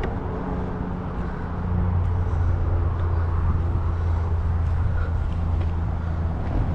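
A motor vehicle's engine running with a steady low drone, getting louder about two seconds in and then holding.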